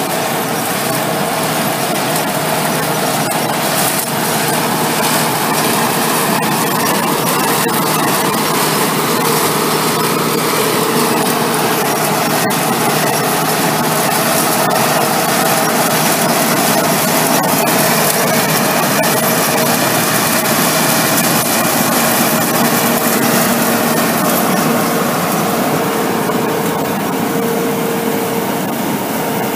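Tractor-pulled Amadas 2110 peanut combine and its John Deere tractor running steadily while picking up a windrow of dried peanut vines.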